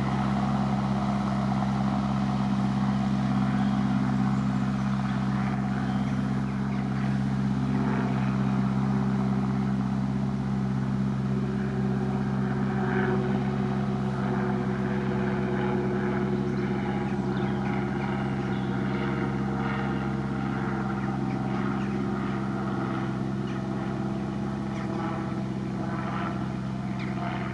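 Tractor engine running steadily under load while pulling a McHale round baler through cut grass, growing slightly fainter as it moves away.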